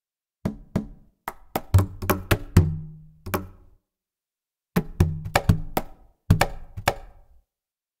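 Sampled Polynesian hand drum from UVI World Suite 2's Aboriginal Drums patch. It plays two short phrases of strikes, about nine and then seven, with a pause of about a second between them, and each hit has a short, low ring.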